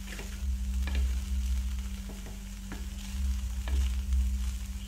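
Wooden spatula stirring and scraping poha (flattened rice) in a non-stick kadhai as it fries on the stove, a few short scrapes and taps at irregular intervals over a steady low hum.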